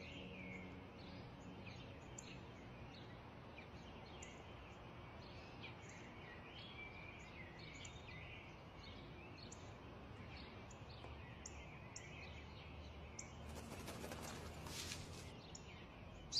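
Faint small birds chirping in short, scattered high calls. About three-quarters of the way through comes a brief stretch of papery rustling, fitting a newspaper being handled.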